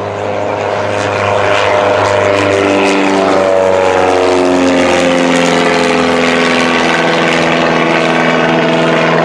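Aerobatic biplane's propeller engine getting louder as it makes a low pass, its pitch dropping as it goes by about four seconds in, then holding a steady note as it pulls up into a climb.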